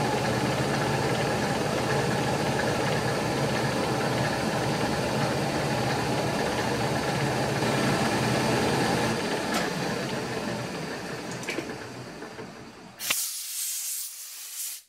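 Milling machine spindle running with a 6 mm end mill side-cutting a keyway, a steady mechanical whine with cutting noise that tapers off after about nine seconds. Near the end comes a short hissing blast of compressed air from a blow gun clearing the chips.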